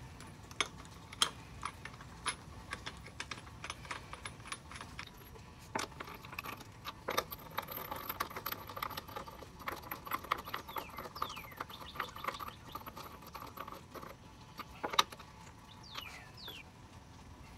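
Lug nuts being spun and threaded by hand onto the wheel studs, making irregular light metallic clicks and clinks.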